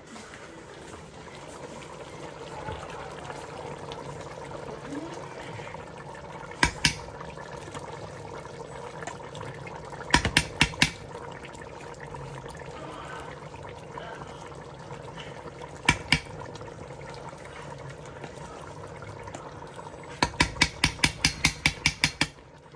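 Kitchen cooking sounds: a steady hiss of food cooking, broken by sharp taps in short runs: a pair about seven seconds in, four quick ones around ten seconds, another pair near sixteen seconds, and a rapid run of about ten taps near the end.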